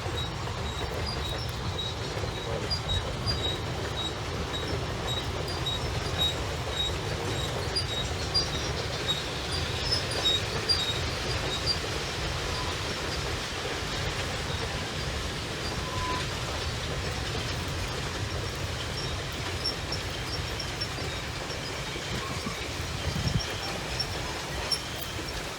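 A train running along the track: a steady rumble of wheels on rail, with faint short high squeaks repeating throughout.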